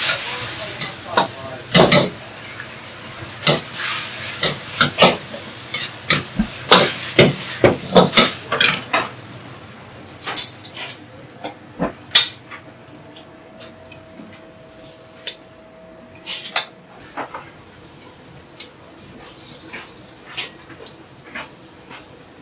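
Stir-frying in a wok: a metal ladle knocks and scrapes against the wok many times over the first ten seconds, over a steady sizzle. After that the knocks thin out, and a faint steady tone sounds for a few seconds past the middle.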